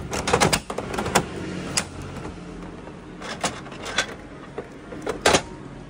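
Crank of a Bandai gashapon capsule-toy machine being turned, a quick run of ratcheting clicks and clunks. Then a few separate plastic knocks and clicks as the capsule is taken from the dispensing chute's flap.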